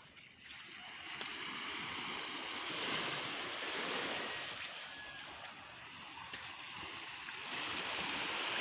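Small waves washing onto a pebbly beach: a steady surf hiss that swells about a second in, eases in the middle, and swells again near the end.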